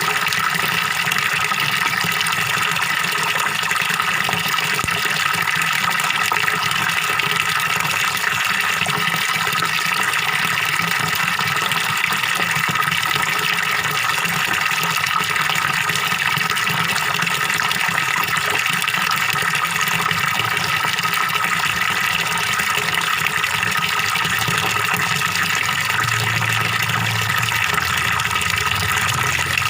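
Small waterfall pouring steadily into a fish pond, a continuous gurgling splash of running water.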